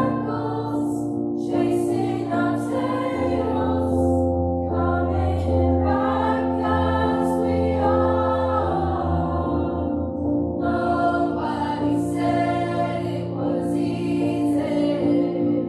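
A school choir of teenage voices singing together in sustained, steady phrases.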